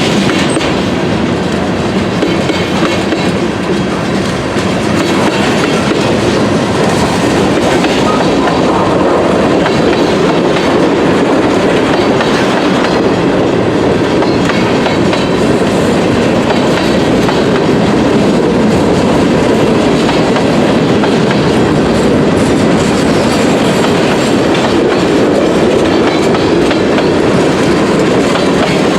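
CSX freight train rolling past close by: a loud, steady rumble of wheels on rail with clickety-clack over the rail joints.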